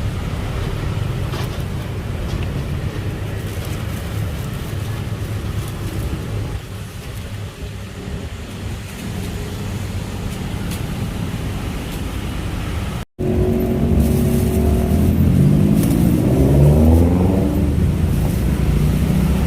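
Steady low rumble of road traffic. After a sudden cut about 13 s in, it gets louder and a passing vehicle's engine rises in pitch as it accelerates.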